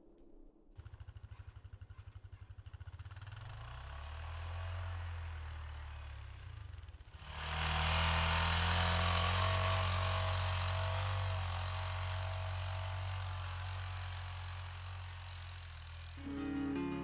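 Honda Pioneer 500 side-by-side's single-cylinder engine running: it comes in about a second in, revs up and eases off, then gets much louder from about seven seconds in as the machine drives close. Music comes in near the end.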